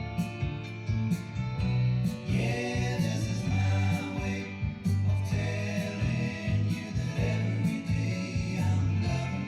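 Music with singing over sustained bass notes and a steady drum beat.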